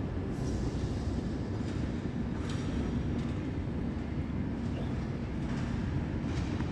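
Steady low machine rumble with a few faint metallic clicks and squeaks on top.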